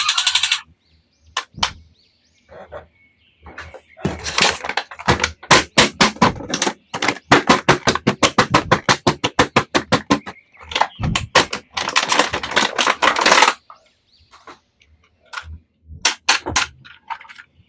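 A fast run of sharp plastic clicks and snaps, about five a second, with scattered single clicks before and after, from hard plastic toys or their packaging being handled.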